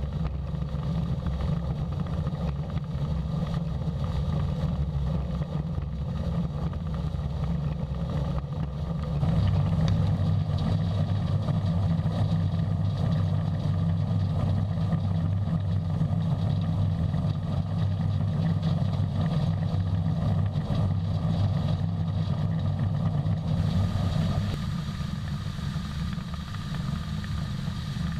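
Diesel engine of heavy farm harvest machinery running steadily. It grows louder about a third of the way in and eases off again near the end.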